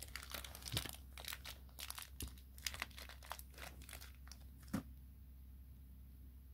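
Faint crinkling and light clicks of handling around a cardboard COVID rapid-test kit box and its packaging, with one sharper click just before five seconds in, after which only faint handling noise remains.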